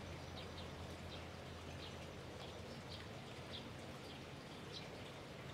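Quiet outdoor ambience: a steady low hum under faint, scattered high chirps.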